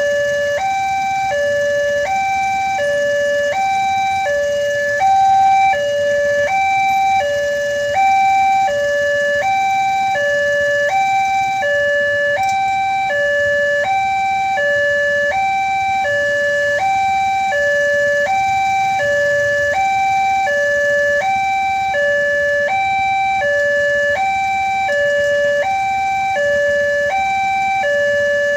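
Railway level crossing warning alarm sounding continuously: an electronic two-tone signal alternating steadily between a higher and a lower note, about one high-low pair a second.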